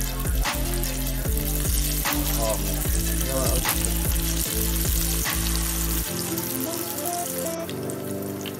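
Batter-coated snack cake deep-frying in canola oil in a saucepan: a steady sizzle of bubbling oil. Background music with a bass beat plays under it, changing about six seconds in.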